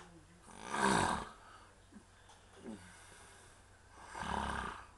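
A drunk man snoring heavily in deep sleep: two loud snores, each about a second long, some three and a half seconds apart.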